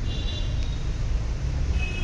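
Steady low rumble of a car, with two short high electronic beeps, one right at the start and one near the end.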